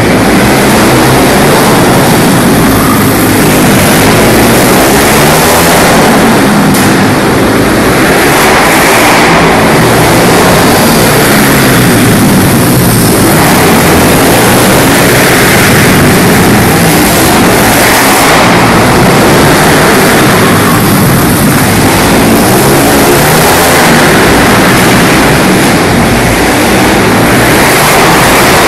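Pit bike engines revving up and down as the bikes lap the track, loud and constant, rising and falling in pitch every few seconds, inside a large indoor hall.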